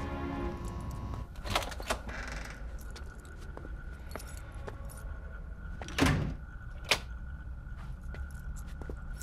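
Keys jangling with small clicks and knocks, then a heavier thump about six seconds in and a sharp click just after it. Soft background music fades out in the first second.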